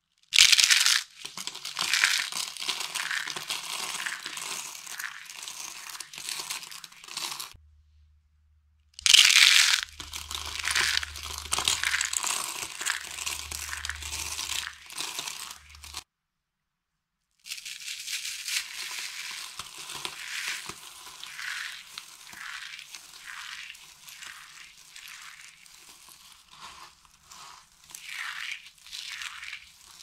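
Thin, brittle slices of dry bar soap being squeezed and crushed by hand: dense crunching and crackling in three bursts separated by brief silences, each of the first two starting with a loud crack. The last burst is softer, as the soap crumbles and is rubbed between the fingers.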